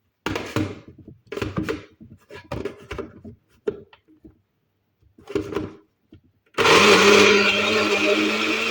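Several short, irregular bursts of knocking and rattling. Then, about six and a half seconds in, a countertop blender starts and runs steadily with a constant hum, chopping raw beetroot, dates, ginger and lemon in water.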